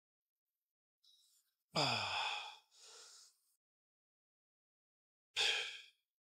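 A man's breathing under lifting effort: about two seconds in, a loud exhale with a grunt that falls in pitch, then a softer breath, and another sharp exhale near the end, as he works through squat reps.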